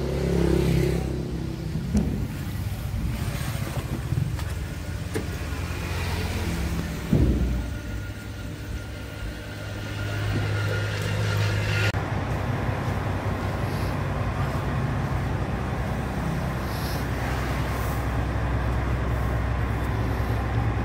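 Diesel engine of a Freightliner Century Class tractor unit idling steadily, with a single knock about seven seconds in.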